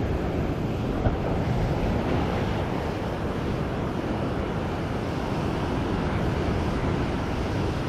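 Rough surf breaking and washing over shore rocks, with wind buffeting the microphone. A brief knock about a second in.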